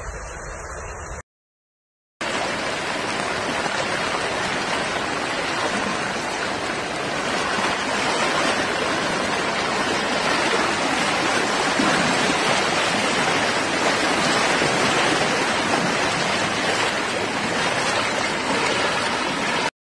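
Fast-flowing floodwater rushing down a road, a loud steady rush of water that starts after a short break of silence about two seconds in.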